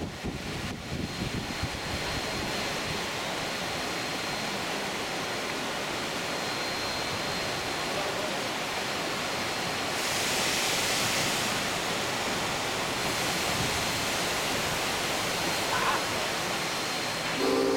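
Steady rushing of a fast, high-running mountain creek over rapids, an even hiss of white water. Near the end a steam locomotive's whistle starts to blow.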